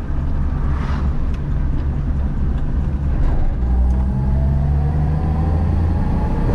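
1953 Chevrolet panel truck's inline six-cylinder engine running while driving, heard from inside the cab. The engine gets louder about three and a half seconds in as it pulls, and a faint whine climbs slowly in pitch as speed builds.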